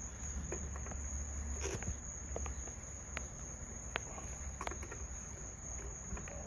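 Steady high-pitched crickets chirping, with scattered light clicks and taps from small hand-tool work.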